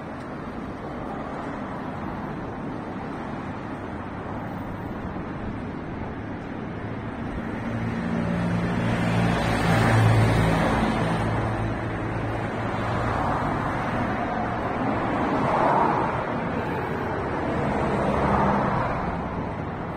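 Road traffic passing: a steady wash of vehicle noise, with one vehicle's engine hum swelling up and fading about halfway through, and a couple more vehicles passing near the end.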